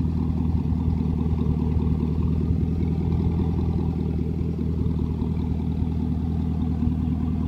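Cadillac CTS-V's supercharged 6.2-litre V8 idling through a Corsa Performance exhaust with the exhaust cutouts open, heard from behind at the tailpipes. It is a steady, deep idle that holds at a constant pitch.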